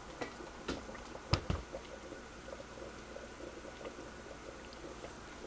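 Covered pot of turkey wings in gravy simmering on the stove, faint bubbling and popping, with a couple of light knocks about a second and a half in.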